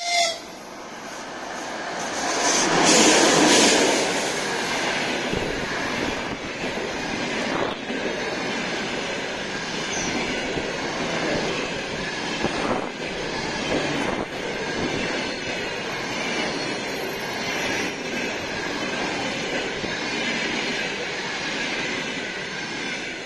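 Russian Railways passenger coaches running past at speed, a continuous rushing rumble of wheels on rail with knocks from the rail joints and a thin steady squeal. It swells loudest a few seconds in and again midway.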